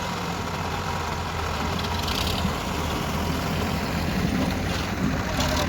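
Diesel engines of a backhoe loader and tractors running steadily near idle, an even hum with no change in speed.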